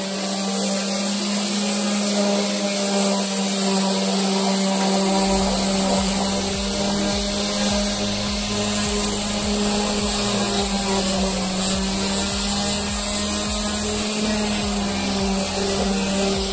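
Corded electric random orbital sander running steadily with a constant motor hum as its pad sands a painted wooden stool seat; a rougher low rumble joins about five seconds in.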